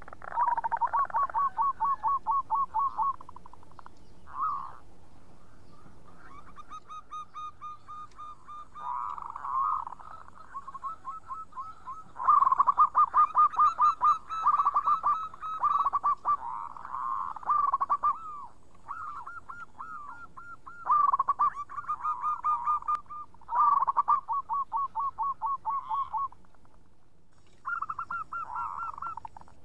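Zebra doves (perkutut) singing: repeated phrases of rapid, staccato cooing notes, some loud and some faint, with short pauses between phrases.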